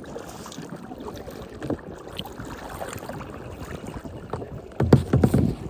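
Kayak paddling on lake water: the paddle blades dip and splash faintly over a steady wash of water and wind. A louder rumbling burst with a few short splashes comes near the end.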